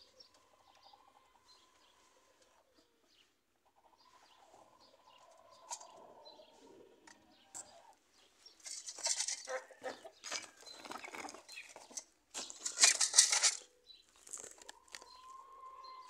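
Chickens in a pen: faint, drawn-out calls early on and again near the end, and in the second half two loud bursts of wing flapping, the second the loudest.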